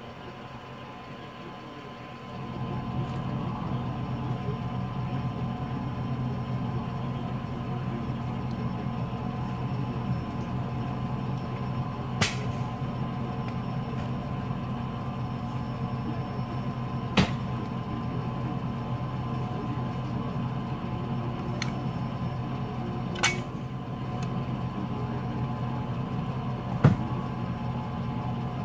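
A vehicle engine hum starts about two seconds in and runs steadily. Over it, four sharp knocks ring out several seconds apart as a long steel bar is driven at the frozen-down base of a deer stand to break it loose.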